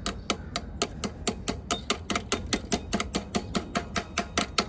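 Rapid, even metal tapping, about five sharp taps a second: a key being tapped into a stiff lock on a 1974 Honda CB125 until it seats.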